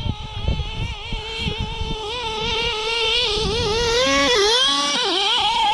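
Nitro RC buggy's small glow engine running at a high, buzzing pitch as the car drives. The pitch holds fairly steady at first, then rises and falls with the throttle, dipping sharply twice near the end.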